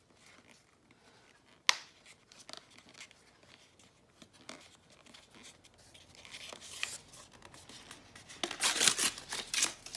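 Sketchbook paper crinkling and rustling as it is rolled tightly by hand into a blending stump. There is a sharp tick about two seconds in, and the loudest burst of rustling comes near the end.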